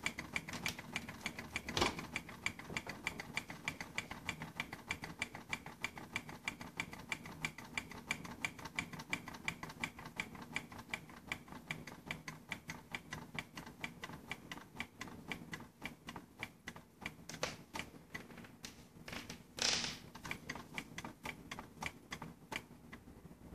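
Soda-can gamma Stirling engine running, its crank and linkage ticking rapidly and evenly; the ticks fade out near the end as the engine coasts down with its light-bulb heat unplugged. A sharper click about two seconds in and a brief louder burst of noise near the end.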